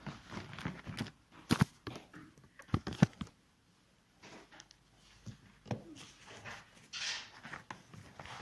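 Scattered knocks, clicks and rustling in a small room, with two sharp knocks about three seconds in and a brief hiss about seven seconds in.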